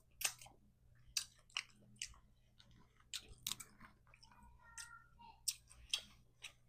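Close-miked chewing and eating of seafood boil (crab legs, mussels, shrimp), with irregular short sharp clicks and wet mouth smacks.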